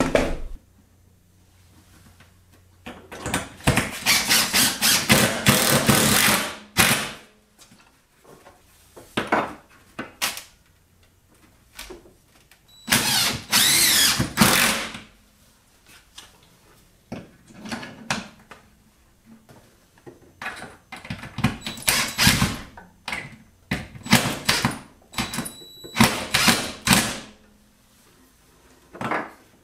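Cordless drill/driver driving screws to fix wooden mounting blocks and plastic pipe hangers to a wall. It runs in about six bursts of one to four seconds with pauses between, its motor pitch rising and falling as it drives.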